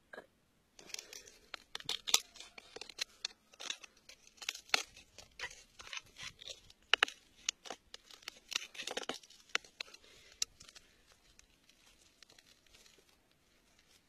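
Metal pick scraping and prying at crumbly soil and grit around an embedded stone: a run of irregular gritty scrapes and clicks that thins out over the last few seconds.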